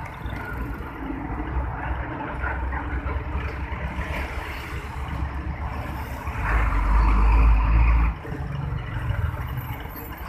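Heavy road traffic of container trucks and motorcycles passing close by: diesel truck engines running and tyre noise. One truck is loudest as it passes, from about six and a half to eight seconds in, and then drops away suddenly.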